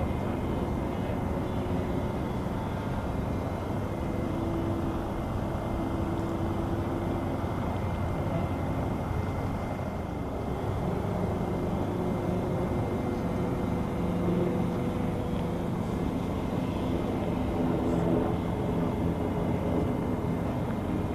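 FMS Cessna 182 radio-controlled model airplane's electric motor and propeller humming steadily in flight, over a constant rushing noise. The hum fades around the middle as the plane flies far off and comes back stronger in the second half as it comes closer.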